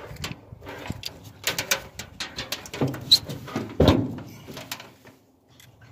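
Irregular clicks, knocks and rattles of a fuel pump and sending unit assembly being handled at the fuel tank opening, with one heavier knock about four seconds in.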